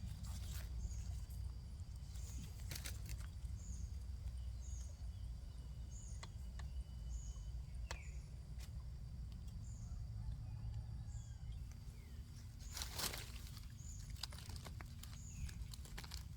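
Outdoor forest ambience: a short, high chirp repeats about once a second throughout, over a low rumble on the microphone, with scattered small clicks and a longer rustle of leaf litter about thirteen seconds in as mushrooms are gathered.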